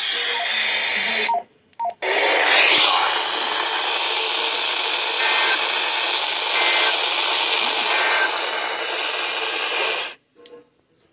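Radio static: a steady hiss from a radio receiver's open channel, dropping out for a moment about a second and a half in and cutting off suddenly about ten seconds in.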